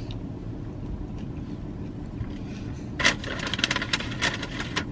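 Metal fork scraping and clicking against a moulded-fibre takeout bowl, a quick run of clicks and scrapes starting about three seconds in, over a steady low hum inside a car cabin.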